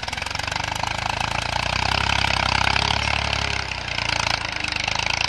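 Massey Ferguson 240 tractor's three-cylinder diesel engine running under steady load while pulling an 11-tine cultivator through the soil. It has a fast, even exhaust beat through a bent-type silencer and grows louder over the first two seconds.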